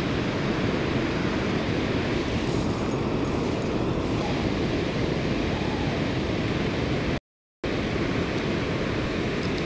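Steady roar of water pouring through a dam spillway and rushing past the bank. The sound cuts out completely for about half a second a little after seven seconds in.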